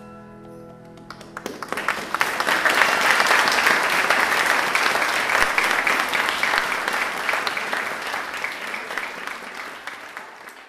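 The final held chord of the song fades out, and about a second and a half in the audience starts applauding. The clapping builds quickly, holds steady, then slowly dies away near the end.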